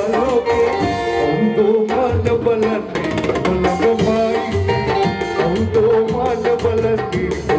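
Live band playing upbeat dance music with a steady beat on drums and percussion.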